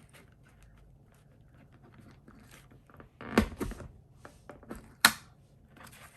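Paper rustling, then a We R Memory Keepers stapleless stapler pressed down through a stack of four sheets of paper and cardstock, with a loud double crunching clunk about three and a half seconds in as it cuts a slit and folds a paper tab. A sharp single click follows about five seconds in.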